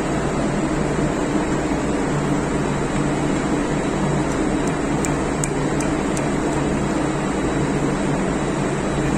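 Steady drone of running engine-room machinery, with a low hum. About five faint metallic clicks fall around the middle, as steel fuel-pump parts are fitted together by hand.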